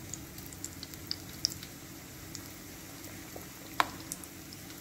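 Gram-flour batter fritters frying in hot oil in a pan: a faint steady sizzle with scattered tiny pops, and one sharper click about four seconds in.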